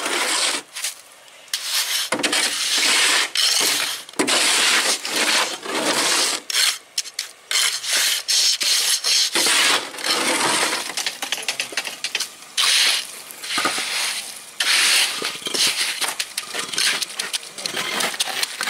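Shovel and hand trowel scraping through wet, gritty hand-mixed concrete: the shovel working the mix in a steel wheelbarrow while the trowel packs and smooths it into a curb form. The strokes are loud and irregular, with short pauses between them.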